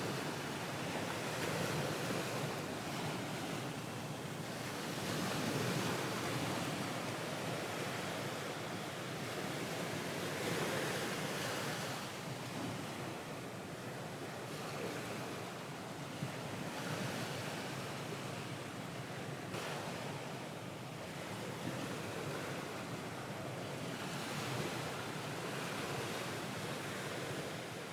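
Ocean waves washing onto a shore, a steady surf hiss that swells and ebbs every few seconds.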